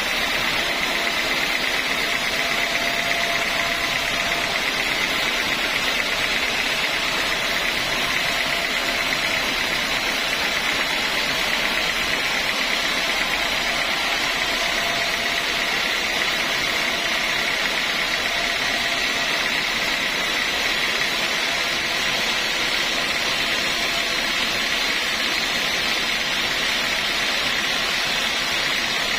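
Sawmill machinery running steadily: a constant motor drone with a high whine, unchanging throughout.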